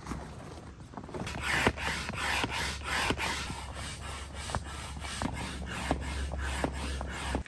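Inflatable boat being pumped up: short regular strokes about three a second, with rubbing and scraping of the hull's fabric, over a low steady hum.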